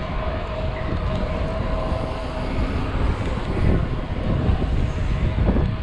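Wind buffeting the microphone and the rolling rumble of a mountain bike ridden fast on pavement, heard from a camera mounted on the handlebars.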